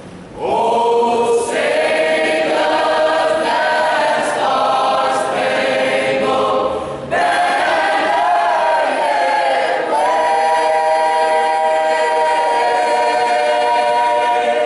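Large choir of many voices singing a national anthem in harmony, with no instruments, under a conductor. Phrases are held as long chords, with a short breath about seven seconds in and a long sustained chord through the last few seconds.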